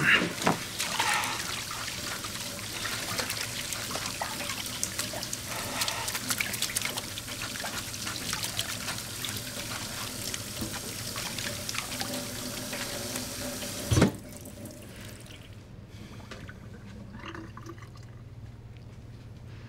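Water running and trickling from a tap into a sink, with a few louder knocks in the first second or so. About 14 s in comes a single sharp knock, and then the running water stops, leaving a quiet low hum.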